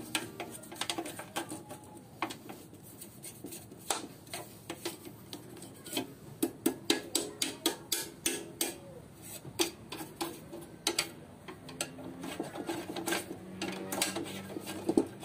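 Irregular clicks and knocks of hands working on a stationary exhaust fan's metal frame and plastic blade, coming in quick runs of two or three a second in the middle.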